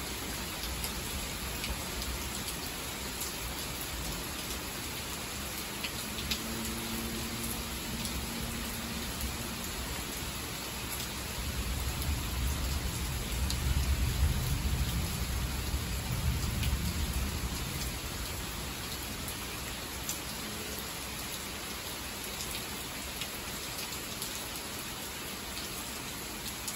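Heavy rain pouring steadily, with scattered drops ticking on a porch railing. Partway through, a low roll of thunder swells and fades over several seconds.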